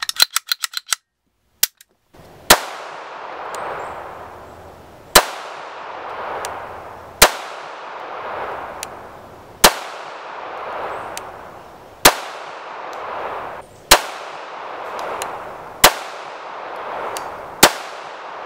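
A quick run of small metallic clicks as the Makarov pistol is put back together, then the Bulgarian Makarov 9x18mm pistol fired eight times at a slow, even pace, about one shot every two seconds. The eighth shot empties the magazine and the slide locks open.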